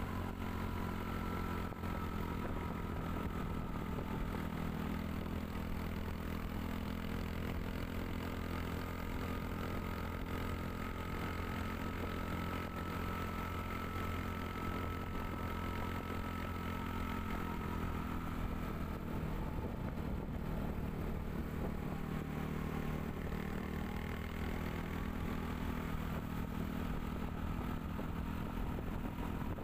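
A vehicle engine running steadily while driving along a road, with road noise and a faint whine that drifts slightly in pitch.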